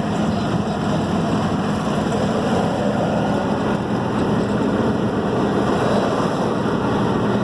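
Steady vehicle engine and road noise with a constant low hum.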